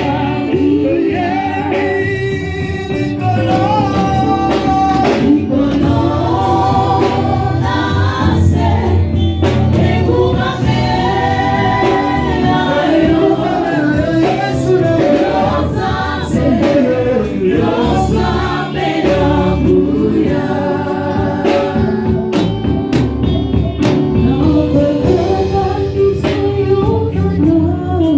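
Gospel song: a group of voices singing together over band accompaniment with strong bass and a steady beat.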